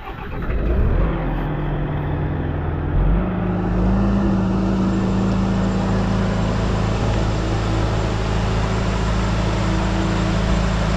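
Engine of a heavy machine revving up about a second in and again at about three seconds, then running steadily at high revs, as it powers a lift of the beam.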